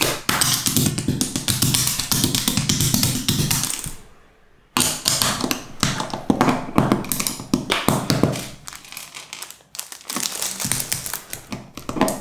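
Plastic Mega Construx bricks clicking and snapping together in rapid, uneven taps as a small model is built by hand, over background music. The clicking stops briefly about four seconds in, then carries on.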